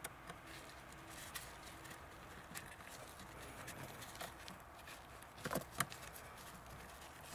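Faint, scattered clicks and taps of a gloved hand working at the heater matrix pipes and their clamps, with two louder knocks close together about five and a half seconds in.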